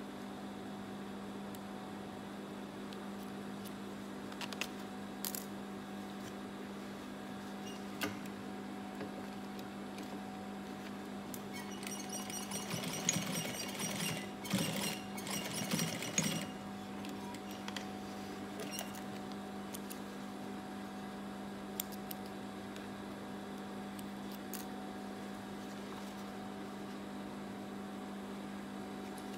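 A Gemsy industrial sewing machine stitching through denim in about three short runs, roughly twelve to sixteen seconds in, over a steady hum.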